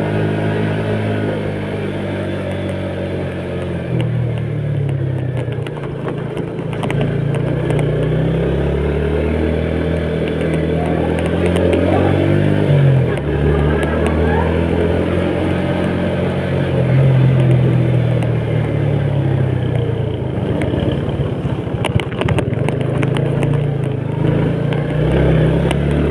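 Small motorcycle's engine running under way, its pitch rising and falling as the throttle changes. A cluster of sharp clicks and rattles comes near the end.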